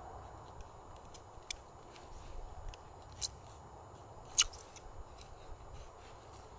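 A few sharp clicks and light ticks, scattered irregularly over a faint steady low hiss; the loudest comes about four and a half seconds in.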